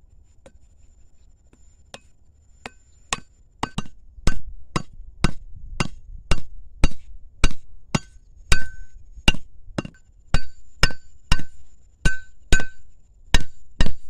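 A machete knocking a wooden stake down into hard, dry ground: a run of sharp knocks, a few light ones at first, then a steady two or so a second, each with a short metallic ring from the blade.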